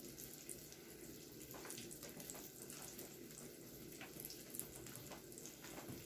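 Flour-coated cauliflower frying in a pan of hot oil: a faint, steady sizzle with scattered crackles.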